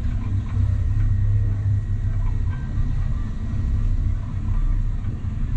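Steady, fluttering low rumble of wind buffeting the microphone on a moving open chairlift.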